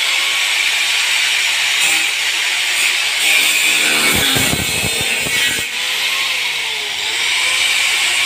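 Handheld angle grinder running with its disc against the sheet-metal edge of a van's tailgate, a steady high grinding hiss of metal being ground. A low rattling comes in for a second or so about halfway through, and the motor's whine dips briefly in pitch late on as it is loaded.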